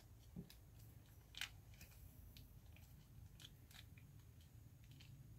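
Near silence: room tone with a scattered handful of faint clicks and small handling knocks, the sharpest about a second and a half in.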